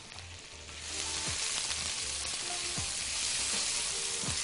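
Diced onion with dried thyme sizzling in hot oil in a wok, being sautéed until soft. The sizzle grows louder about a second in and then holds steady as a silicone spatula stirs the onion through the pan.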